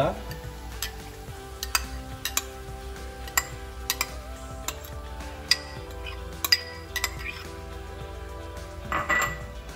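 A spoon clinking against a cup and a kadhai as soaked moong dal is scraped out and tipped into chopped amaranth leaves: about a dozen sharp, irregular clinks. Faint background music plays underneath.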